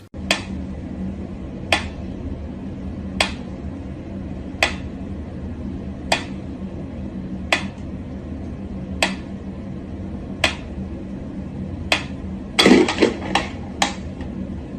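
Sharp taps or clicks of something hard, evenly spaced about every one and a half seconds over a steady low hum, then a quick cluster of several taps near the end.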